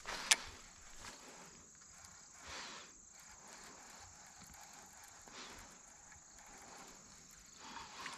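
Faint, steady high-pitched insect chirping from the grassy pond bank. A single sharp click comes about a third of a second in, with a few soft rustles later.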